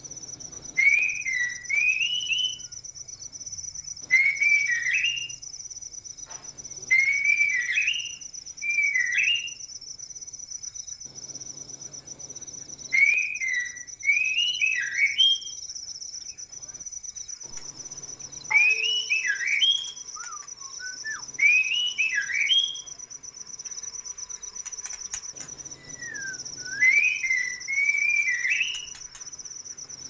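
White-rumped shamas whistling short swooping phrases in bursts every few seconds, over a steady high trill of crickets.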